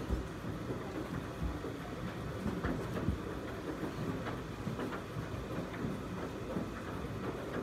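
Background room noise of a bingo hall: a steady low rumble with a few faint clicks.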